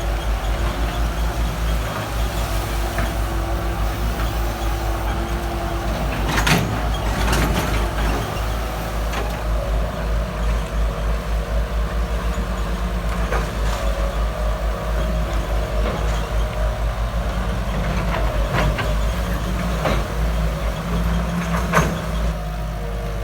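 Backhoe's diesel engine running with a steady throbbing rumble, broken by a few sharp knocks.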